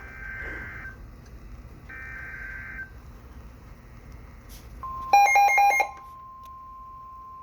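NOAA Weather Radio SAME alert header: two screechy, roughly one-second data bursts, then about five seconds in the steady 1050 Hz weather-radio warning alarm tone begins. Just after it starts, a loud burst of rapid electronic beeps cuts in for under a second.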